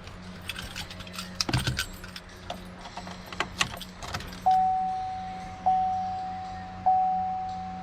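A bunch of keys jangling and clicking for about four seconds. Then the 2016 Chevrolet 2500 HD's dashboard warning chime starts dinging, one clear tone about every 1.2 seconds, each ding fading away.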